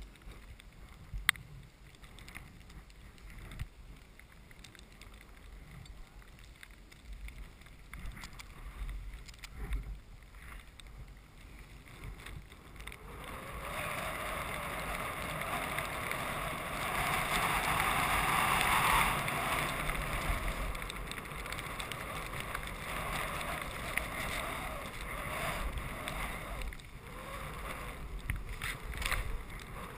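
Skis sliding through deep powder snow: a steady rushing hiss that starts about 13 seconds in and grows loudest midway through the run. Before it, quieter shuffling on the snow with a sharp click about a second in.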